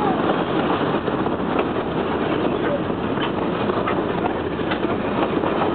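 Train running, a steady rumble with scattered light clicks.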